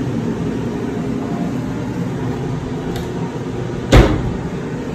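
Steady low hum of room air conditioning, with a faint click about three seconds in and a sharp knock about a second later: the wooden wardrobe cabinet door being pulled open.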